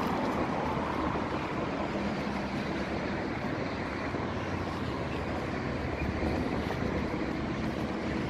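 Steady hum of road traffic mixed with wind noise on the microphone.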